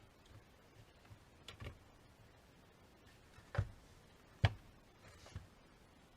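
A few sparse, sharp clicks and light knocks of small hard objects, the two loudest about three and a half and four and a half seconds in.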